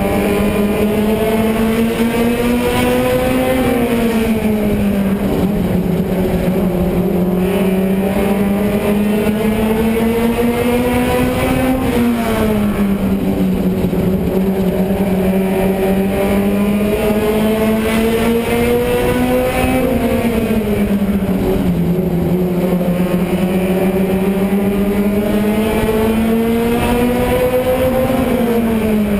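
Stadium stock race car engine heard from on board at full throttle, its pitch climbing steadily along each straight and dropping sharply as the driver lifts for each turn, about every 8 seconds, over a steady rumble.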